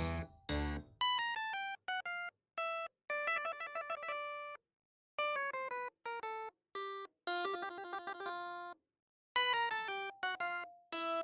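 Background music: after a strummed guitar chord fades, a light, plinky electronic melody plays in short phrases of a few clear notes, separated by moments of complete silence.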